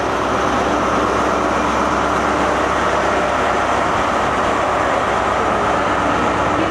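InterCity 125 (HST) Class 43 diesel power car pulling out of a platform under power, its engine running hard with a steady, loud note and its exhaust sounding as it moves away.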